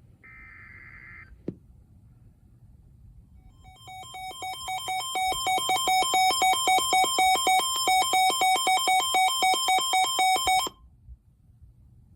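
The last burst of an Emergency Alert System SAME header, a harsh second-long digital screech, then a click. A few seconds later a weather radio's electronic alert alarm starts, grows louder over about two seconds and beeps in a fast two-tone pattern, about three pulses a second, before cutting off suddenly near the end.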